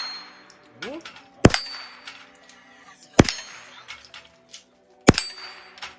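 Three single shots from a .22 semi-automatic AR-style rifle, about two seconds apart, each followed by a short high metallic ring.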